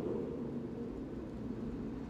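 Low, noisy rumble fading slowly away, the dying tail of a closing sound effect.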